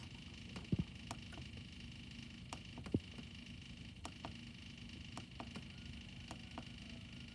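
Faint steady hum with light clicks scattered irregularly through it.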